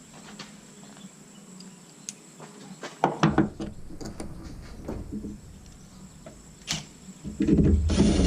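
Scattered metallic clicks and knocks of hand work on a pickup's tailgate as the tailgate support cable is refitted, with a cluster of knocks about three seconds in. A louder low rumbling clatter starts near the end.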